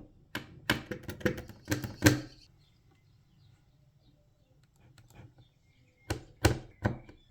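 Lego Technic plastic parts clicking and tapping as they are handled and pressed together: a quick run of sharp clicks in the first two seconds, a quiet pause, then a few more clicks near the end.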